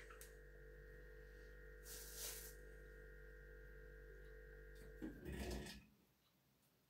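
Faint, steady electrical hum with a few fixed tones, a brief soft rustle about two seconds in, and a louder handling noise with a low thump around five seconds, after which the sound cuts out.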